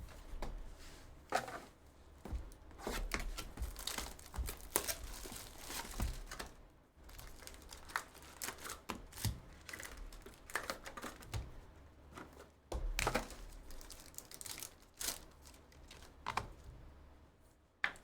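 Trading card packs being opened and handled: wrappers crinkling and tearing, with irregular scratchy clicks and rustles of cards being slid and shuffled.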